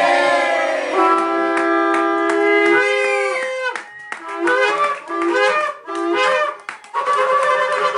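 Shofar blown: one long steady blast, then three short blasts. Music begins near the end.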